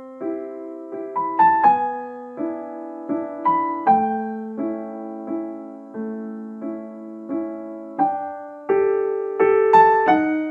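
Background piano music: a gentle melody of single struck notes, each sounding then fading, a few per second.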